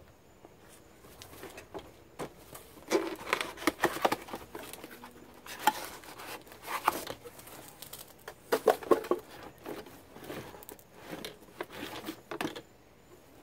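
Cardboard box and packing being handled: a sharp click at the start, then irregular rustling, crinkling and knocks as a Ryobi cordless jet fan blower is pulled out of its box.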